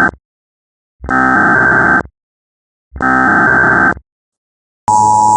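Emergency Alert System SAME header: the tail of one burst of digital data tones, then two more bursts, each about a second long with a second of silence between. Near the end the steady two-tone EAS attention signal begins, with a high hiss alongside it.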